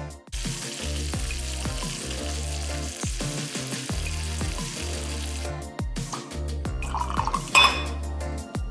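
Bacon strips sizzling as they fry in a pan, with a steady hiss over background music with a deep, pulsing bass beat; the sizzle fades about five and a half seconds in, leaving mostly the music.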